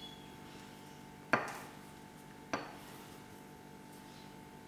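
Kitchen knife slicing through a rolled log of layered banana puri dough, the blade knocking down onto the cutting surface twice, about a second and a quarter apart.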